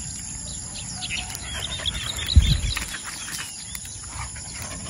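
Small birds chirping, with a quick run of short high chirps in the middle. A low thump comes about halfway through.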